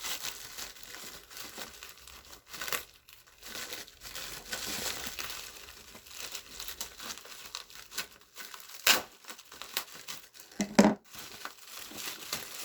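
Packaging crinkling and tearing as a parcel is worked open by hand, irregular and scratchy, with two louder sharp rips or snaps about nine and eleven seconds in.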